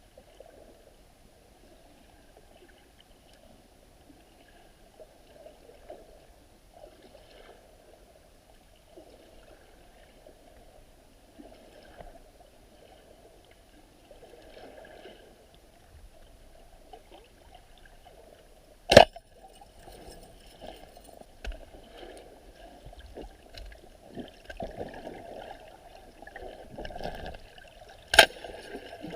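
Muffled underwater sound picked up through a camera's waterproof housing: low, shifting water and bubble noise that grows busier in the second half. Two sharp, loud clacks about nine seconds apart, the second near the end, are the loudest sounds.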